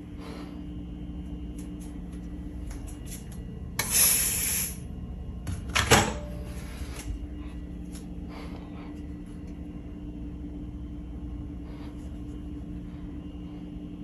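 One short burst of hiss from an aerosol smoke-test spray can (Smoke Sabre) about four seconds in, followed by a single knock, over a steady low hum.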